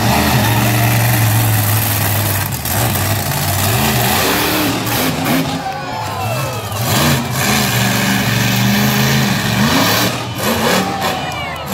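Monster truck engine revving up and easing off several times, its pitch rising and falling.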